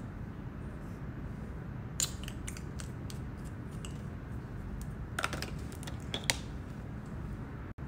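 Light plastic clicks and taps of a liquid blush tube being handled and capped: a sharp click about two seconds in, then scattered clicks with small bunches past the middle, over a steady low background hum.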